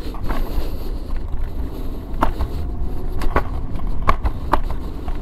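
Lenovo M2 electric scooter ridden in its fastest mode, about 25 km/h: steady wind buffeting and rolling rumble, with several sharp clicks and knocks over the deck and a faint whine rising as it speeds up.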